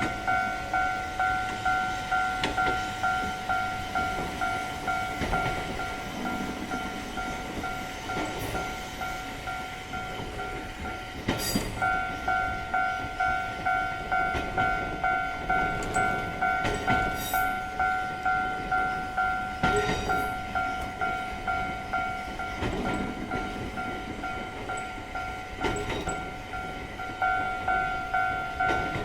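Japanese railway level-crossing warning bell ringing its "kan kan" alarm, a two-tone electronic ding repeating at about two strikes a second, breaking off briefly and restarting near the middle. A train runs past over the rails under the bell.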